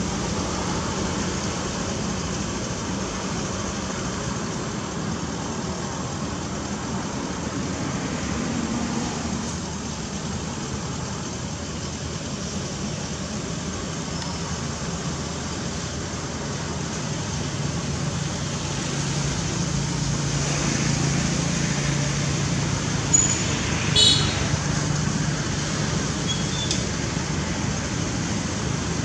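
Steady background rumble of road traffic, with a low engine hum growing louder in the second half and one brief high chirp about three-quarters of the way through.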